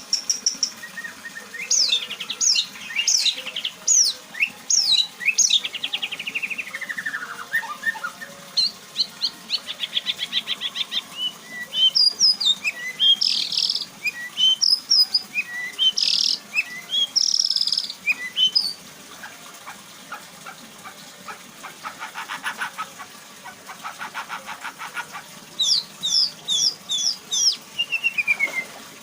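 A white-rumped shama (murai batu) sings a long, varied song of sharp whistles, falling glides and fast rattling trills. It is running through its repertoire of learned, mimicked phrases.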